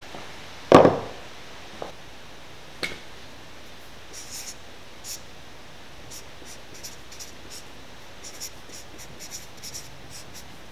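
A thump about a second in and two lighter knocks after it, then a Sharpie felt-tip marker scratching across paper in short strokes as words are written.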